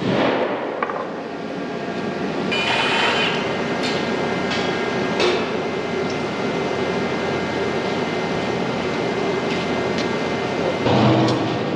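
A sledgehammer strikes the steel boot of a tile plow, then scattered metal clanks and knocks follow as the boot is worked off and carried, over a steady machine hum.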